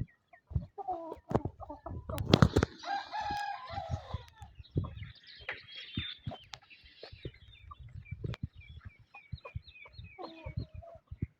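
Rooster crowing, one long call about a second in, then clucking and a shorter call near the end. A run of short high chirps and scattered sharp clicks sound in between.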